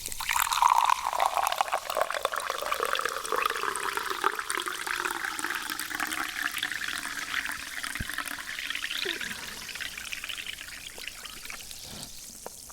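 A drink being poured into a glass in one long steady stream. Its pitch climbs as it goes, and the stream tapers off near the end.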